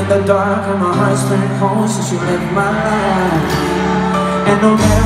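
Pop-rock band playing live in an arena, heard from the audience: a male lead singer over guitars and a bass line that changes note every second or so.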